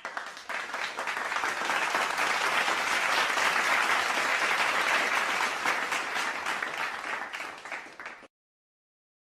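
Crowd applause sound effect: many hands clapping, swelling over the first second, holding steady, then thinning out and stopping about eight seconds in.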